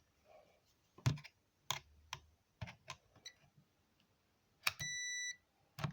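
A series of light clicks and knocks, about seven in all, from plastic and wood being handled, then a short high electronic beep lasting about half a second, near the end.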